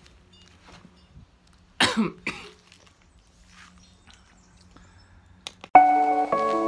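A person coughs about two seconds in, one strong cough and a smaller one right after. Near the end, music with sustained pitched notes starts suddenly.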